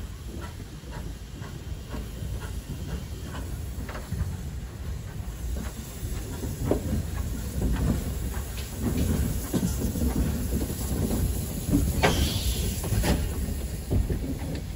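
Small steam tank locomotive running slowly past at close range: a low rumble with irregular clanks and clicks from the wheels and motion, growing louder as it draws near, and a short hiss of steam about twelve seconds in.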